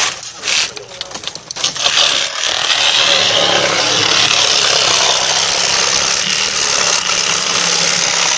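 Cordless reciprocating saw with a Starrett King-Cut demolition blade cutting into a car through the windshield glass. It starts and stops in short, broken spells, then runs steadily from about two seconds in.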